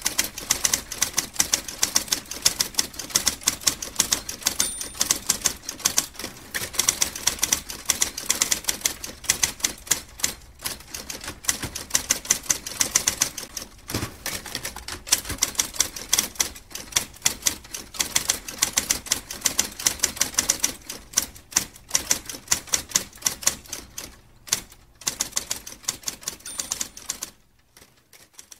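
Typewriter keys clacking in a fast, continuous run of strikes with a few brief pauses, stopping about a second before the end.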